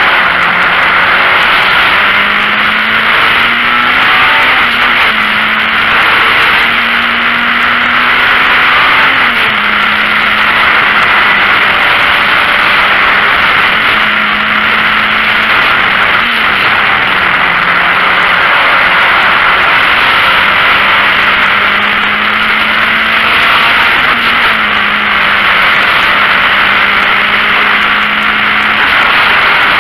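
VW Golf Mk1 race car's four-cylinder engine running hard under racing load, heard from inside the cabin as a loud, dense drone. The engine note holds steady and drops in pitch three times.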